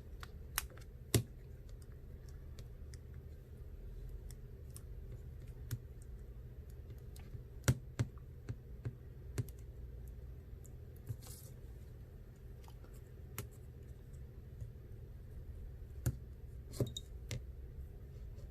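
Irregular small clicks and taps of tools and parts being handled on an opened iPhone XR, loudest about a second in, with a cluster about eight seconds in and another near the end, over a low steady hum.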